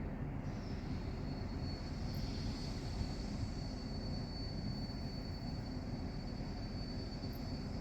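A distant engine's steady low rumble, with a thin, steady high whine that sets in about half a second in.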